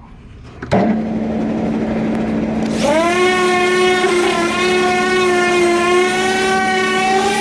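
Electric sanding equipment switching on. A steady hum starts suddenly about a second in, then a motor spins up with a rising whine near three seconds and runs at a steady pitch.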